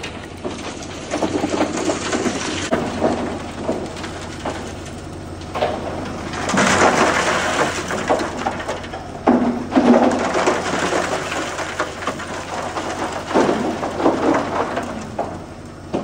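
Chunks of hardened concrete buildup, chipped out of a ready-mix truck's drum, tumbling out of the turning drum and clattering down the chute onto the ground in irregular surges, over the steady low hum of the running truck.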